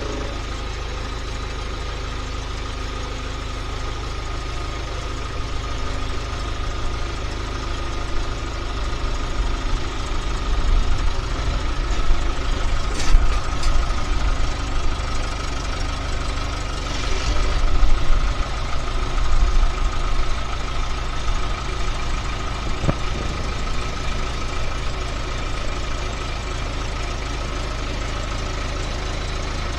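Skid steer engine running steadily, with a thin steady whine over it. It grows louder and rougher for several seconds in the middle, as if under load, then settles back.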